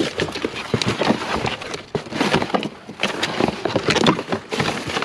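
Rummaging through a pile of curbside junk by hand: an irregular run of rustles, knocks and clatters as items are shifted and pulled about.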